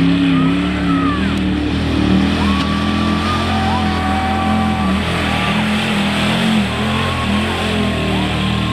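Mud-bog truck engine revving hard as the truck churns through deep mud, its pitch rising and falling again and again.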